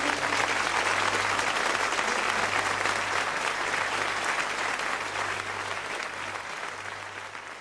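Studio audience applauding at the end of a song, the clapping slowly fading away.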